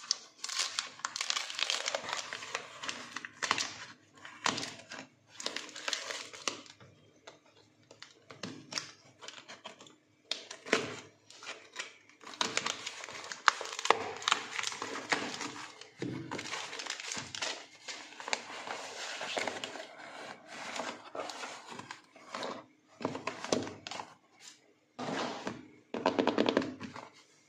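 Cardboard shipping box being unpacked by hand: packing tape and paper labels being torn and crinkled, with irregular rustling and crackling of cardboard and paper. There is a quieter pause about a third of the way through.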